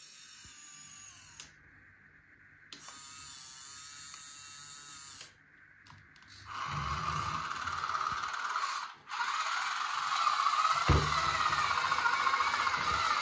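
Home-built RC model tractor running: a faint whine at first, then a louder, steady mechanical whirring from about six and a half seconds in, broken briefly near nine seconds.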